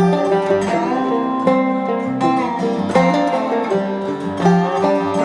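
Background music: a lively plucked-string instrumental with a steady beat, its notes changing every fraction of a second.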